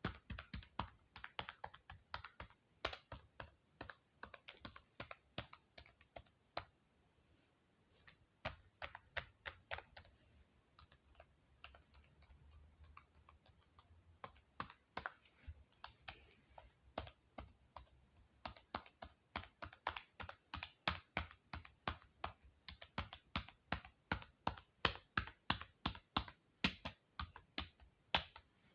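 Computer keyboard being typed on, a string of sharp key clicks. The typing thins out with short pauses about a third of the way in, then settles into a steady run of about four keystrokes a second.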